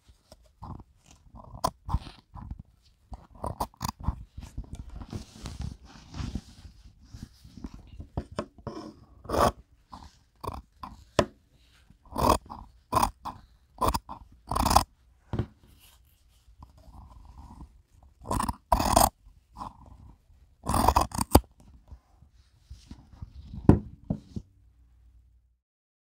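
Scissors snipping through the stitched seam of a thin woven shirt fabric: an irregular run of sharp snips, some in quick bunches, with fabric rustling between the cuts.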